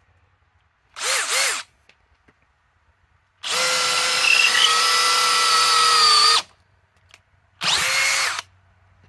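DeWalt DCD805 cordless hammer drill with a 1/2-inch spade bit, set to speed 2, run in bursts: two quick trigger blips about a second in, then a steady run of about three seconds with an even motor whine, then another short burst that spins up near the end.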